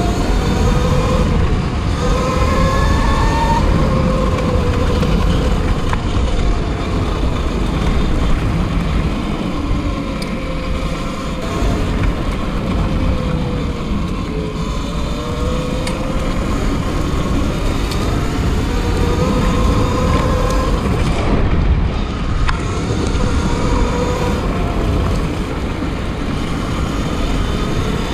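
Electric motor of an E-Ride Pro SS e-bike whining while it is ridden, the whine rising and falling in pitch again and again as the rider speeds up and slows, over a heavy low rumble.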